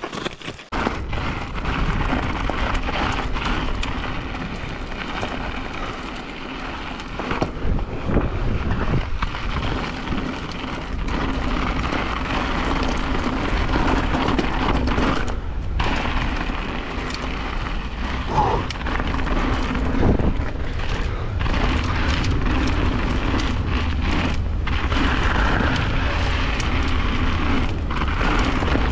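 Wind rushing and buffeting over a bike-mounted or helmet camera's microphone as a mountain bike descends, with tyres rumbling over rock, a steady loud rush that briefly drops out a few times.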